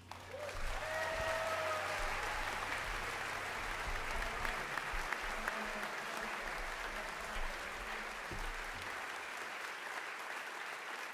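Concert audience applauding as the band's last note dies away, breaking out suddenly and holding steady, with one voice cheering about a second in.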